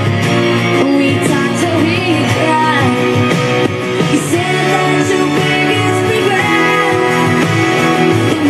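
Music: a pop-rock song with singing and guitar.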